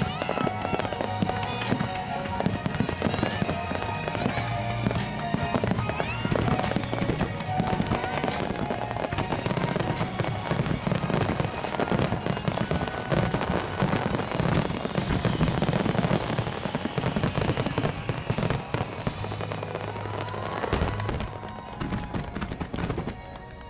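Dense barrage of aerial fireworks shells bursting and crackling, one on top of another, in a fireworks-show finale, with music playing underneath. The barrage thins out near the end.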